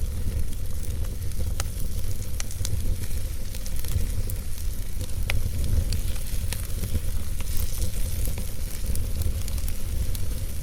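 Wood fire burning in a fireplace: a steady low rumble of the flames with scattered sharp crackles and pops from the burning logs, thickening into a denser crackle near the end.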